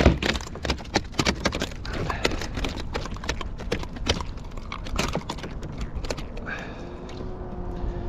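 A freshly landed flounder being handled on the deck of a plastic kayak: a quick, irregular run of knocks and slaps that eases off about six seconds in.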